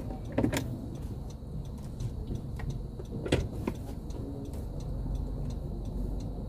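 Car engine running at a low idle, heard from inside the cabin, with a few short clicks and knocks, the sharpest about half a second and about three and a half seconds in.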